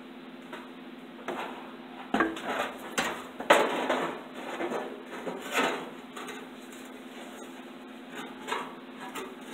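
Radiator core support being handled and set onto its rubber mount: scattered knocks, scrapes and rubbing of metal parts, mostly in the first half or so, over a steady background hum.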